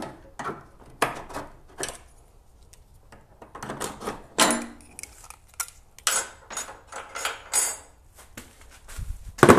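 Clicks, scrapes and clatters of a New Edge Ford Mustang's old headlight assembly being worked loose from its mount by hand and with a tool, with a heavier knock near the end as it comes free.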